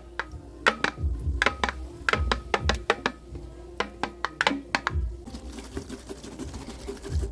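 Plastic motor-oil bottle being handled and knocked about as it is cleaned out: a rapid, irregular run of clattering knocks for about five seconds, then a steady hiss, over background music.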